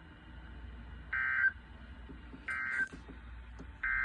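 Emergency Alert System end-of-message signal: three short bursts of SAME digital data tones, about a second and a half apart, the last starting just before the end.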